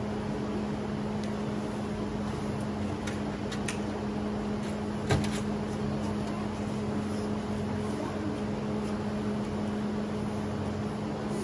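A steady machine hum, with one thump about five seconds in and a few light clicks shortly before it.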